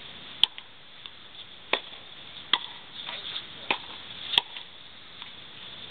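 Tennis rally on a clay court: a series of sharp pops from rackets striking the ball, with ball bounces, about one a second.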